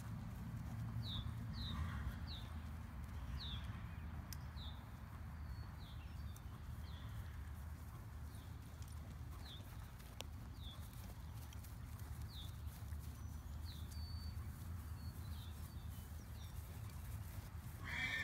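Hoofbeats of a three-day-old buckskin filly moving quickly on grass alongside a man's footsteps as he leads her on a halter, over a steady low rumble. A bird chirps over and over with short falling notes.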